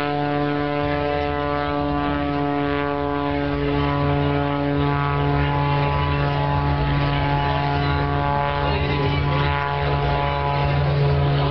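Single-engine propeller aerobatic plane flying overhead, its engine giving a steady drone that holds one pitch.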